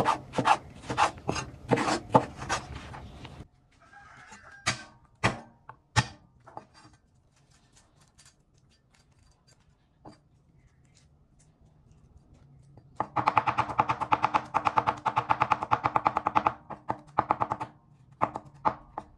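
Cleaver chopping on a wooden cutting board: a run of quick knocks as luffa is sliced into strips, then a few single chops. About 13 seconds in comes a burst of very rapid chopping, mincing garlic, and a couple more knocks near the end.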